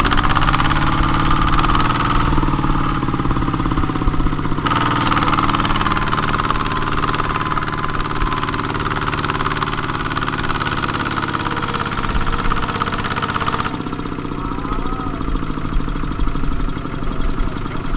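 Kubota ZT140 single-cylinder diesel engine of a two-wheel walking tractor running steadily, with a fine, even beat. The tone shifts abruptly twice.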